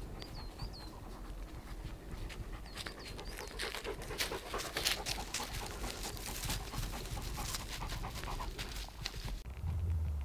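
A dog panting as it runs, in quick rough breaths with some rustling. A few short high chirps sound in the first three seconds, and the panting stops abruptly near the end.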